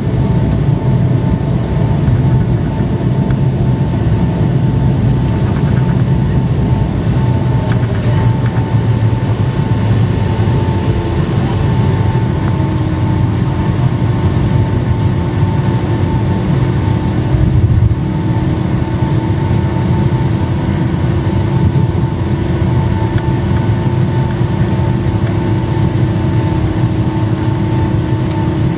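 Cabin noise of a Boeing 757-200 taxiing, heard from a seat over the wing: the jet engines running at low thrust with a deep rumble and a steady whine. A second, lower whine joins about ten seconds in.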